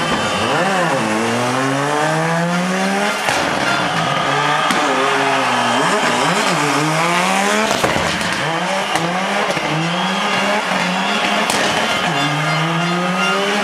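Audi Quattro S1 rally car's turbocharged five-cylinder engine driven hard. Its revs climb and drop several times as it accelerates, backs off and accelerates again.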